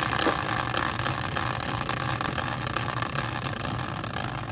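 A caster wheel rigged as a prize wheel spinning freely on its bearing with a steady whir, growing slowly quieter as it spins down.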